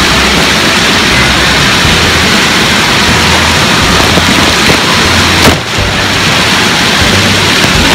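Loud, steady hiss and splash of water-park water jets spraying close to the microphone. About five and a half seconds in there is a sharp knock, and the sound dips briefly as spray strikes the lens.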